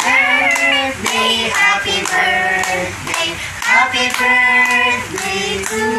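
Several voices, children's and adults', singing together in held notes while hands clap along.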